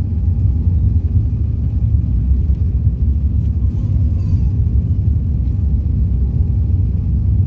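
Steady low rumble inside an airliner's cabin as it taxis on the ground: engine noise and the wheels rolling, heard through the fuselage.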